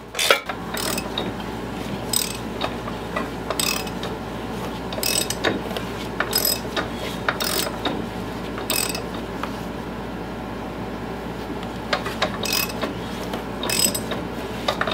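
Socket ratchet wrench clicking in short, irregular bursts on a riding mower's small engine, over a steady low hum.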